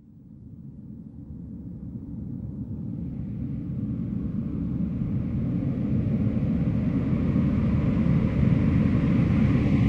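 A deep rumbling roar fades in from silence and grows steadily louder, spreading from a low rumble into a fuller hiss.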